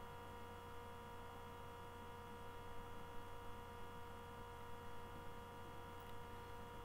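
Faint steady electrical hum made of several constant tones, the recording's background noise, with a faint click about six seconds in.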